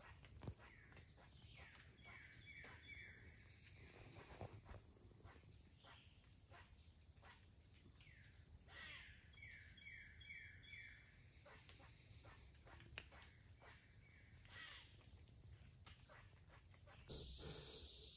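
Steady, high-pitched chorus of insects that shifts slightly in pitch near the end. Twice a bird gives a short run of three or four falling notes.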